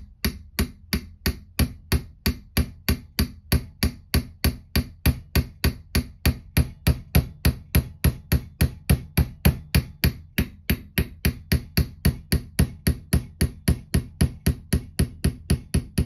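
Small hammer tapping a 5/64 roll pin punch gently and evenly, about four light taps a second, driving the extractor roll pin out of a SIG Sauer P210 pistol slide.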